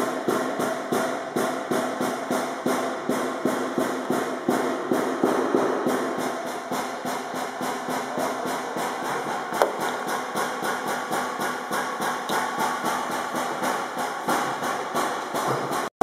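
Background music with a steady beat, cutting off suddenly near the end.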